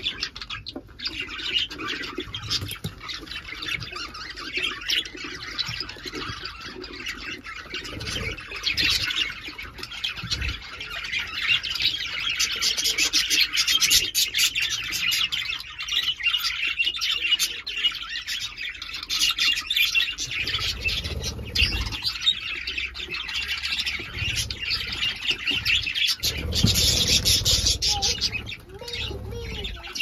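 A flock of budgerigars chattering: a dense, continuous stream of warbling chirps and short squawks, busiest around the middle and again near the end, with a few low rumbles in the second half.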